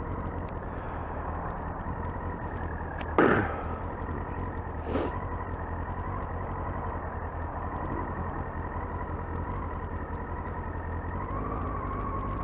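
Yamaha R6 inline-four sportbike running at a steady cruise, heard through a helmet-mounted mic with heavy wind rumble. The engine's pitch rises near the end as it accelerates. A short loud sound comes about three seconds in.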